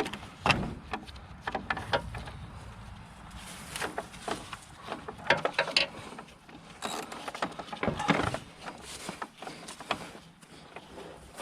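Irregular clicks, knocks and scrapes of hand tools against metal, as a socket wrench on an extension is worked on a bolt that is stuck.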